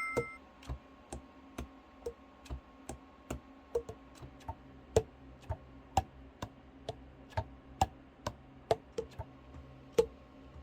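Saxophone keys being worked on the overhauled alto: irregular clicks about three a second as the pads clap shut on the tone holes, each with a short hollow pop, over a faint hum. A chime tone fades out at the very start.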